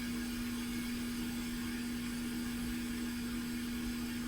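A steady hum with an even hiss behind it from bench equipment running, unchanging throughout.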